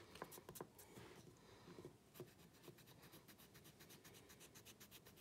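Faint rasping of a file scraping the cane of a bassoon reed in its channels, the thinning that makes the reed more free blowing. The strokes are irregular at first, then settle into quick, even strokes about two seconds in.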